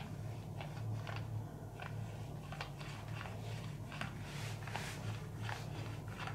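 Hands lightly tapping and rubbing on skin and hair during a massage: soft, irregular clicks and taps, a few a second, over a steady low hum.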